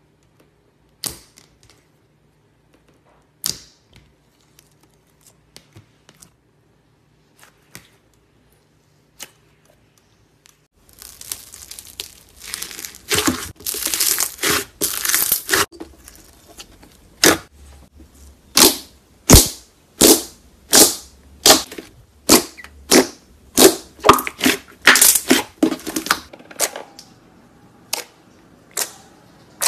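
Hands squishing and poking slime. A few scattered soft clicks come first, then a dense crackling from about eleven seconds in, then a long run of loud, sharp air-bubble pops, about one to two a second, that thins out near the end.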